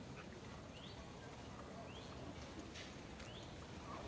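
Faint, short high chirps from an animal, each rising in pitch, about one a second, over a steady outdoor hiss.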